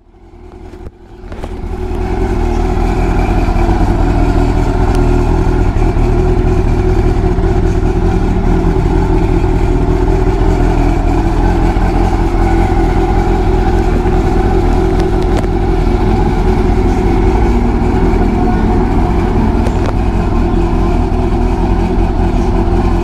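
Honda CB400 Super Four's inline-four engine idling steadily. It fades in over the first two seconds, then holds an even level.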